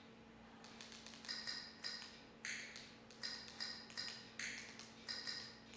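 XBMC menu navigation sounds: a short, clicky blip each time the highlight steps across the on-screen search keyboard, about ten in a row at roughly two a second, starting under a second in.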